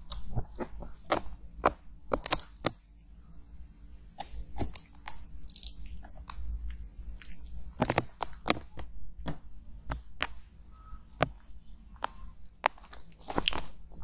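Metal tweezers picking and scraping at dried, peeling film in the canal of a silicone ear microphone, heard right at the mic as irregular crackling clicks and taps. A louder cluster of clicks comes about eight seconds in.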